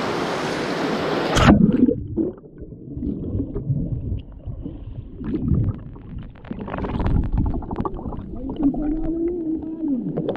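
The steady rush of the waterfall cuts off abruptly about a second and a half in as the microphone goes underwater. After that come muffled underwater gurgling and sloshing from a swimmer diving into the deep pool, with a low wavering tone near the end.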